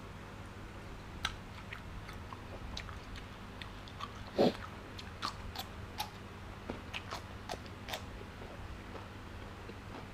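Close-up chewing and biting: a person eating raw beef with crunchy fresh vegetables, with scattered wet mouth clicks and one louder bite about four and a half seconds in.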